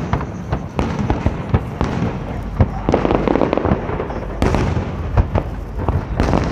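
Aerial fireworks display going off, a rapid, irregular string of bangs and crackling bursts.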